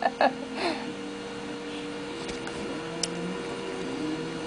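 A baby being spoon-fed: a few short, soft mouth and vocal sounds in the first second, one sliding down in pitch, then a couple of faint clicks over a steady background hum.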